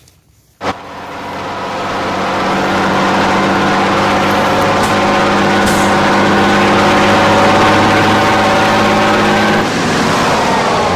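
Truck engine sound effect: after a click about half a second in, an engine starts and builds up over a second or so, then runs steadily and loudly, with a slight change near the end.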